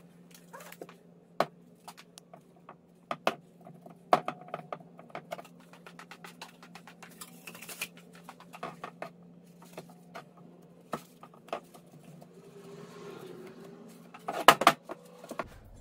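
Scattered small clicks and taps of hands working at a wooden workbench, over a steady low hum. A few louder knocks come near the end as the aluminium engine case is handled.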